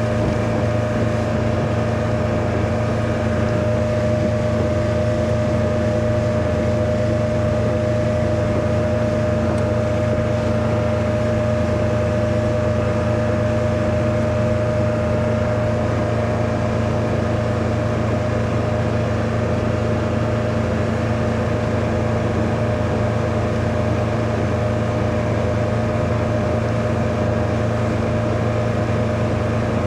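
Mercruiser 120 hp four-cylinder sterndrive engine running steadily under way, a constant hum with water and wind noise over it.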